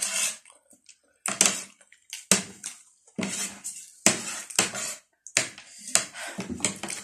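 A metal spoon scraping and tapping a plate of chatpate in short, separate strokes, about one a second.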